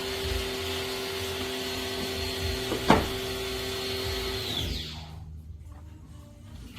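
A small electric motor runs steadily with a rushing-air hiss, then is switched off about four and a half seconds in and winds down with a falling whine. A single sharp knock comes near the three-second mark, and faint low thumps follow once the motor stops.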